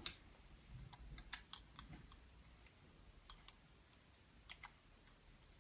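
Faint, scattered small clicks and taps of parts being handled and fitted together, about a dozen over a few seconds, unevenly spaced.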